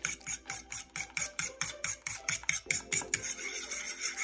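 Fork whisking a beaten egg in a ceramic bowl: rapid, even clicking of the metal tines against the bowl, about six or seven strokes a second.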